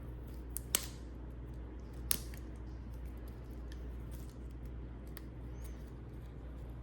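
Two sharp snips, about a second and a half apart, as a cutter cuts two pieces off a headlight wiring harness, with a few faint ticks of handling between them.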